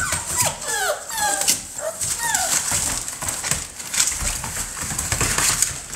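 Six-week-old American bully puppies whimpering, short high whines sliding up and down, over the first couple of seconds. After that comes a scratchy scuffle of their paws in wood shavings on a plastic kiddie-pool floor.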